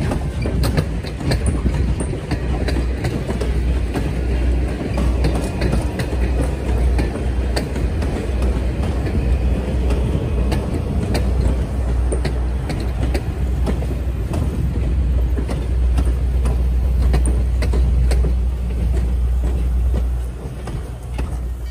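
A train rolling past close by: a heavy low rumble of railcars with repeated sharp clicks of wheels on the track. It dies away in the last couple of seconds.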